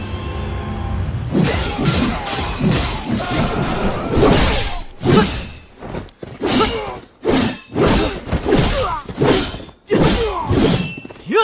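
AI-generated sword-fight sound effects: a rapid run of clashing, shattering impacts and thuds, with short shouts and grunts between them, over music.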